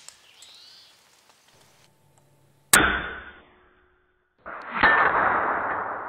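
Pellets striking steel field targets with sharp metallic clangs: one hit about three seconds in, a second just before five seconds, the second inside a longer stretch of noise that slowly fades.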